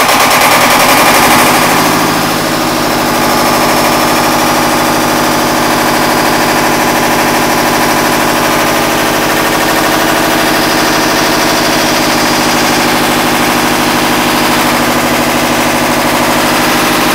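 Lister Petter two-cylinder diesel engine of a standby generator set, just started: it runs up to speed in the first couple of seconds, then settles into steady, loud running.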